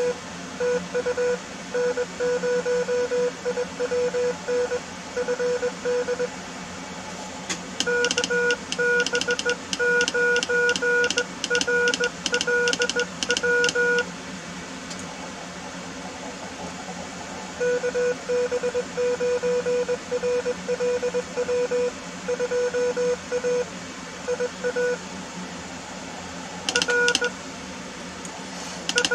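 Morse code (CW) on 20 meters from a CW Flea QRP transceiver: one steady mid-pitched tone keyed in dots and dashes over band hiss. From about 8 to 14 seconds, and again briefly near the end, each element comes with a sharp click as the operator sends on a straight telegraph key. The stretches without clicks are the other station's signal being received.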